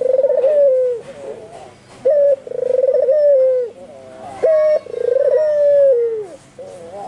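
Albino white puter (Barbary dove) cooing over and over in a vigorous, continuous bout: three coo phrases about two seconds apart. Each phrase is a short clipped note, then a longer rolling coo that falls away at its end.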